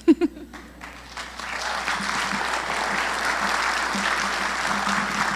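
Congregation applauding at the end of a testimony. The clapping builds over the first second or two and then holds steady.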